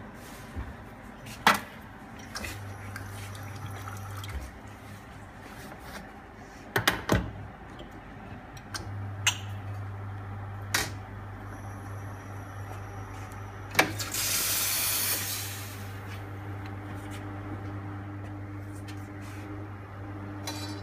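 Espresso machine at work: sharp metal knocks of the portafilter being tamped and locked into the group head, then the pump's steady low hum as the shot is pulled, with a brief hiss about 14 seconds in.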